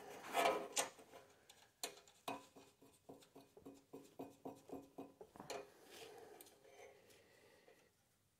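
Faint handling noise of metal oil-filter lines being worked into place in an engine's sheet-metal shroud: a few scrapes and knocks, then a quick run of light metallic ticks about four a second, then more soft scraping.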